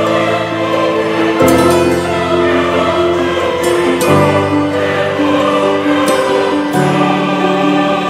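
Background music: sustained choir-like chords that change every two to three seconds.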